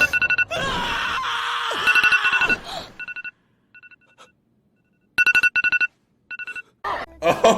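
Electronic phone-style ringing: a two-tone trill in short rapid bursts, repeated several times with gaps between.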